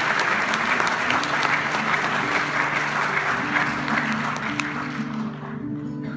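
Audience applause that dies away about five seconds in, while an acoustic guitar begins picking slow single notes underneath.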